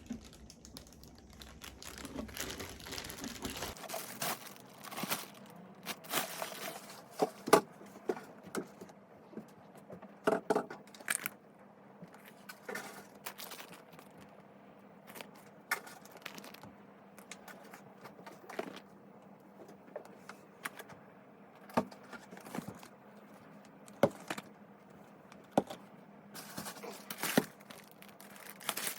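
Things being handled: scattered clicks, light clinks and knocks over faint rustling and crinkling, a few knocks louder than the rest.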